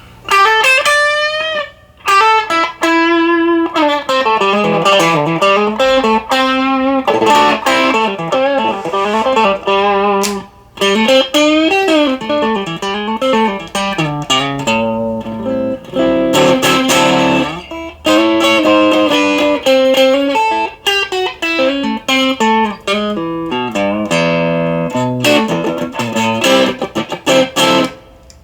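ESP M3 electric guitar played through a Marshall DSL1 valve amp: fast lead-guitar lines with string bends and vibrato, in phrases broken by short pauses about 2, 10 and 18 seconds in.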